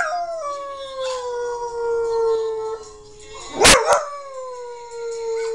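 Dog howling along to music: two long howls, each sliding down in pitch and then held steady, with a short loud sharp sound between them about three and a half seconds in.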